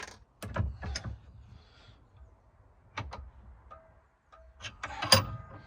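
Hard objects being handled: a scatter of separate clicks and knocks, the loudest about five seconds in.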